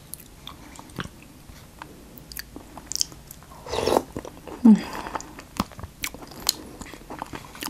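Close-miked eating sounds: a metal spoon clicking and scraping in a plastic tub of chicken curry, then a spoonful taken into the mouth with a loud slurp about four seconds in, followed by chewing.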